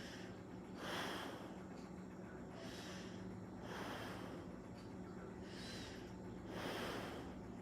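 Nervous, heavy human breathing: five noisy breaths, each about half a second, coming roughly every second or so. A faint steady low hum lies underneath.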